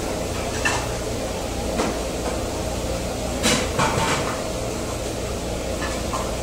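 Steady low hum of an eatery's room noise, with a few short clinks of chopsticks against bowls, the loudest about three and a half seconds in and a couple more just after.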